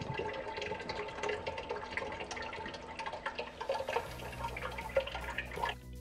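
Water pouring from a glass coffee carafe and splashing steadily, cutting off suddenly near the end.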